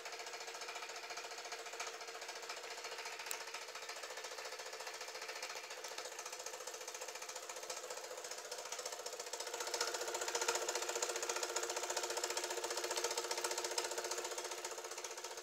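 Fleischmann 122/4 model engine driving two lineshafts through a gear-down, with the belts, pulleys and driven toy workshop models all running: a fast, steady mechanical chatter that grows louder about ten seconds in.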